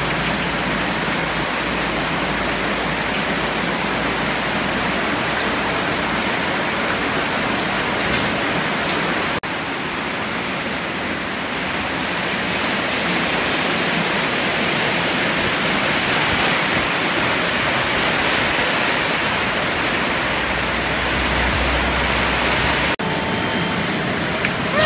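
Heavy typhoon rain pouring steadily, a dense hiss of water on roofs and ground. Near the end a kitten gives a brief mew.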